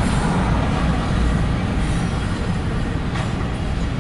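Norfolk Southern double-stack intermodal freight train rolling past, its wheels on the rails making a steady low rumble, with one sharper click about three seconds in.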